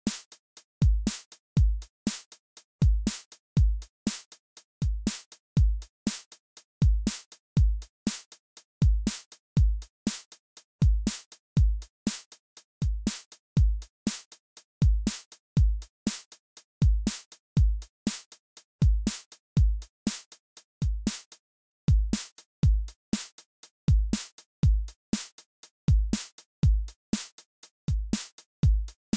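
Background electronic music with a drum-machine beat: deep kick drums in a steady repeating pattern, with sharp clicking hits between them.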